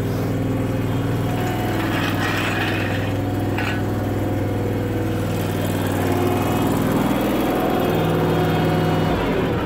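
Terramite compact tractor's engine running steadily, winding down near the end.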